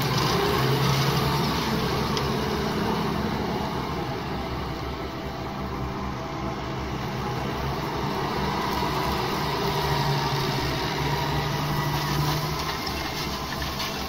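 New Holland T7.235 tractor's six-cylinder diesel engine running under load as it pulls a Lemken reversible plough through hard ground. It is steady, swelling louder about a second in and again near ten seconds as the tractor comes close.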